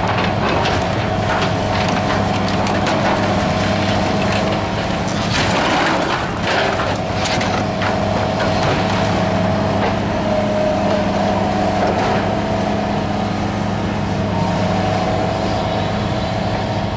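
Tracked excavator with a demolition grapple, its engine running steadily while the grapple tears into the building, with a run of crashes and cracks of breaking debris in the middle.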